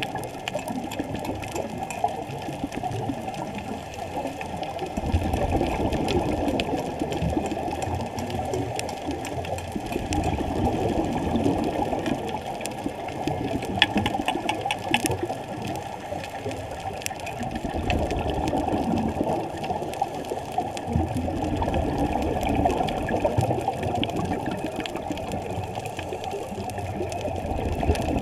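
Muffled underwater sound through a GoPro HERO3+ waterproof housing: a scuba diver's regulator breathing, the exhaled bubbles swelling louder every few seconds. Faint scattered clicks run through it, a little cluster of them about halfway.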